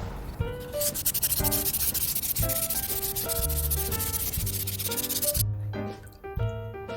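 Abrasive scrubbing on the rusty steel of an adjustable wrench, starting about a second in and stopping sharply past the middle, over background music.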